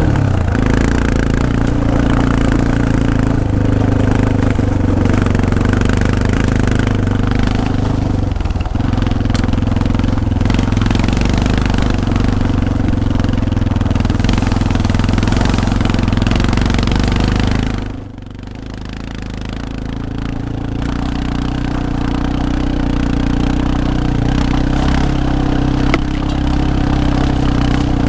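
Yamaha Serow 250's single-cylinder four-stroke engine running steadily under way. About two-thirds of the way through it drops suddenly in loudness, then builds back up over several seconds.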